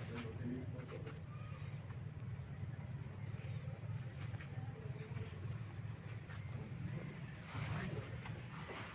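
A cricket trilling steadily, a high, fast and even pulsing, over a low steady hum. A short rustling noise comes near the end.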